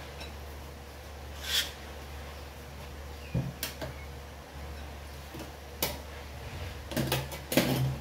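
Steady low hum with a handful of sharp knocks and clacks, several of them close together near the end.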